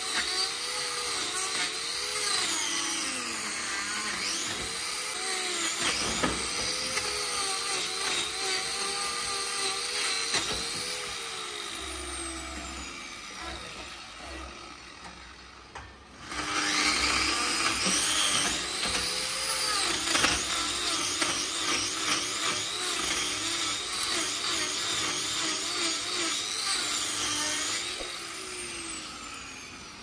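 Handheld electric grinder with a trimming disc cutting a cow's hoof, its whine rising and falling in pitch as the disc bites into the horn and eases off. It grows quieter a little before halfway and comes back louder just after.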